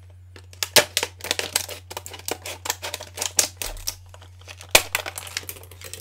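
Scissors cutting open a stiff clear plastic blister pack: irregular snips, clicks and crackles of the plastic, with a couple of sharper cracks standing out.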